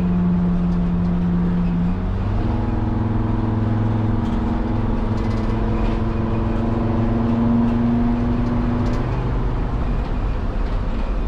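Sprinter van's five-cylinder diesel engine and road noise heard from inside the cab while driving. About two seconds in the engine note drops as the transmission shifts up, then rises steadily as the van picks up speed.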